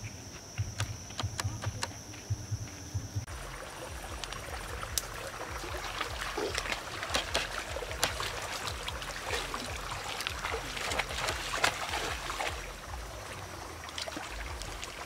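Footsteps through brush, with a steady high thin tone behind them; about three seconds in this gives way to continuous splashing and sloshing as feet wade through shallow stream water.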